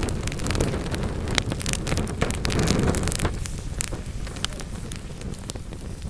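Wood fire burning in a fireplace: frequent sharp crackles and pops of the logs over a low roar of the flames. The low roar eases about three seconds in, leaving the crackles more sparse.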